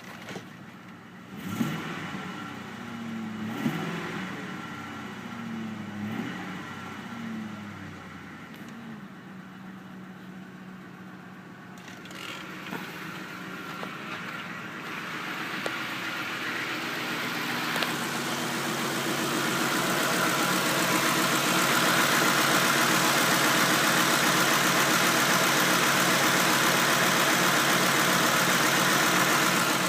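Ford Super Cab pickup engine starting about a second and a half in, its speed rising and falling for several seconds before it settles to a steady run. From about fifteen seconds in, the engine sound grows steadily louder and holds there to the end.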